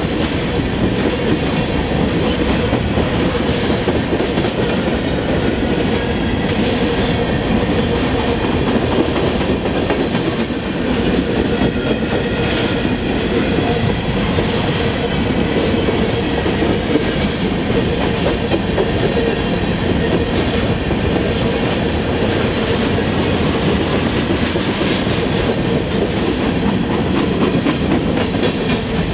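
Freight train's covered hopper cars rolling past close by: a steady rumble and clatter of steel wheels on the rails, with a thin, steady high ringing tone over it.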